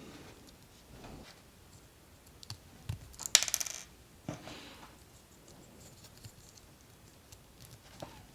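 Small hard plastic model-kit parts clicking and clattering on a work surface, with one short rattling burst about three seconds in.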